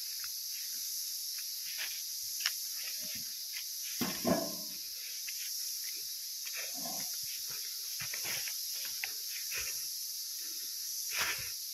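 A steady, high-pitched insect chorus, with footsteps on a forest path and two brief low sounds about four and seven seconds in.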